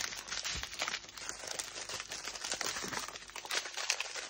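Strips of small plastic bags of diamond-painting drills crinkling as they are handled and folded up.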